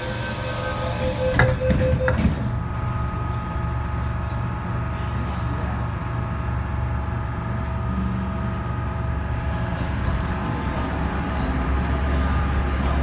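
MTR M-Train at departure: rapid door-closing warning beeps and a high hiss of air, the doors knocking shut about one and a half to two seconds in. The train then runs steadily with a low hum from its motors and wheels as it pulls out of the station.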